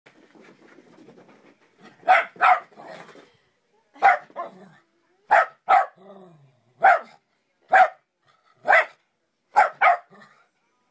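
A JackRat dog (Jack Russell–rat terrier mix) sneezing on cue as a trick: about eleven short, sharp sneezes, some in quick pairs, starting about two seconds in.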